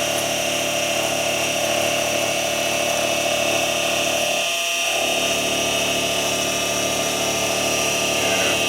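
Benchtop mini milling machine running, its motor and spindle giving a steady whine made of several fixed tones, with a brief change in tone about four and a half seconds in.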